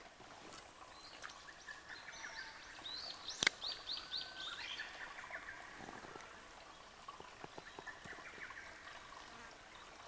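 Faint birdsong: runs of short, quickly repeated chirping notes, with a single sharp click about three and a half seconds in.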